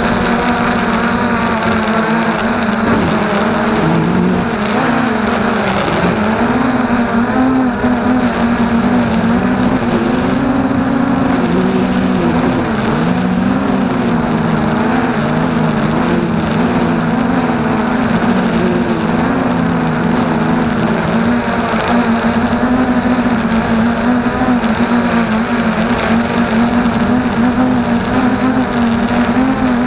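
FreeX Skyview quadcopter's motors and propellers whirring in flight, heard close up through the onboard action camera. The pitch wavers up and down as the throttle changes.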